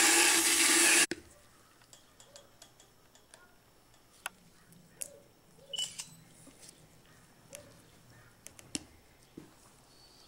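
Motorized equine dental float running and then cutting off abruptly about a second in. After that come only faint scattered clicks and taps.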